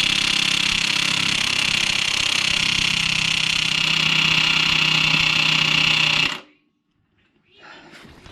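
DeWalt DCF899 18 V brushless cordless impact wrench hammering continuously on a car's crankshaft pulley bolt, then stopping suddenly about six seconds in. The bolt does not come free; it is proving a real challenge.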